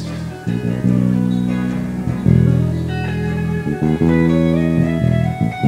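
A live band's guitars playing held chords, changing to a new chord about every two seconds, with no vocals.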